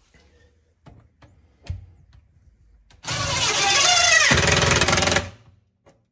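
Impact driver hammering a fine-threaded drywall screw into a wooden board: a loud burst of rapid impacts lasting about two seconds, starting about three seconds in, after a few light handling clicks.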